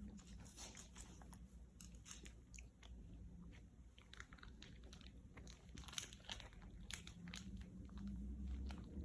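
A dog chewing: faint, irregular crunches and clicks.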